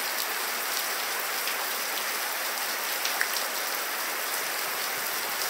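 Steady rain on the barn roof: an even hiss with scattered light ticks.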